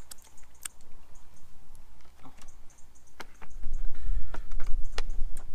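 Scattered light clicks and taps of food packaging and containers being handled on a camp table. About three and a half seconds in, a low, gusting rumble of wind on the microphone comes in and becomes the loudest sound.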